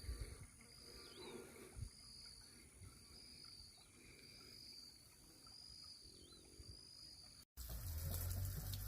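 Faint animal calls: a high, pulsing call repeating about once a second over a steady high hiss. After a sudden break near the end, a louder low rumble takes over.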